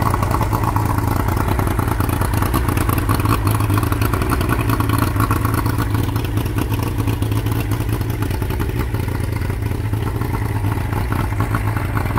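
Yamaha 115 hp two-stroke V4 outboard running steadily at a constant speed with its cowling off. It runs, but not quite right: the owner suspects the carburetor needle jet.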